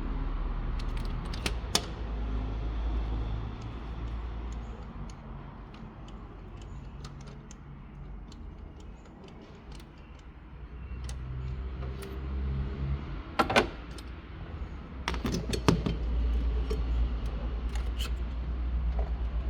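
Metal hand tools clinking and clicking as a 16 mm spark plug socket is worked on the engine to remove the spark plug, with a few sharp metallic clicks scattered through, over a low steady rumble.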